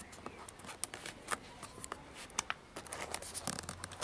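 Fingers handling a cardboard box at its front tab: scattered light clicks and scrapes of cardboard.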